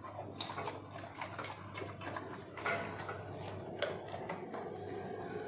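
A dog eating food offered by hand: scattered small crunching clicks, a few a second, over a steady low hum.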